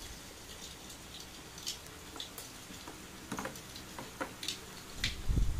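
Scattered light clicks and taps of plastic toy pieces being handled on a toy grill set, with a low handling bump near the end.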